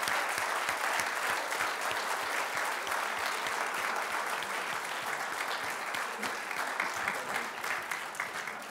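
Audience applauding, many hands clapping at once, steady and then starting to fade near the end.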